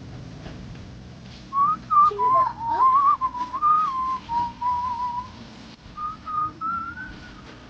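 A person whistling a simple wandering tune in one clear tone, a longer phrase starting about a second and a half in and a shorter rising phrase near the end.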